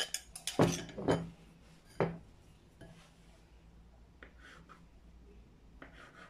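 A knife cutting through a soft dough log and knocking on a wooden tabletop, four sharp taps in the first two seconds, then faint scraping of the blade on the table.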